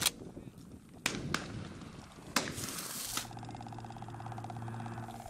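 Several shotgun shots across a dove field, sharp single cracks at different distances in the first two and a half seconds. From about three seconds in, a steady engine hum with an even pulse.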